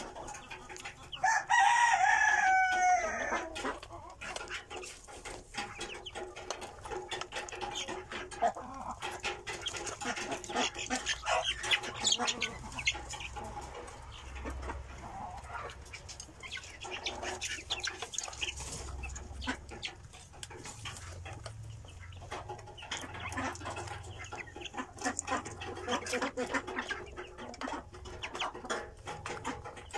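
Young chicks cheeping and clucking in a pen, with many short high calls. About a second and a half in, a rooster crows once, with a falling pitch; it is the loudest sound.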